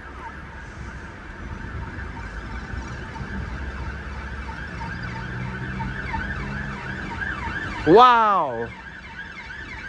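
Fire truck siren wailing, its pitch sweeping up and down over and over. A low steady hum comes in midway. A loud "Wow!" is heard near the end.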